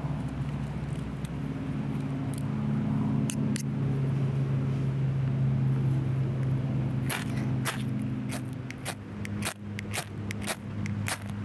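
Ferrocerium rod struck repeatedly with a metal striker to throw sparks onto wood shavings: two sharp scrapes about three seconds in, then a quick run of strikes, two or three a second, from about seven seconds in. Under it a steady low engine-like hum, which weakens after about eight seconds.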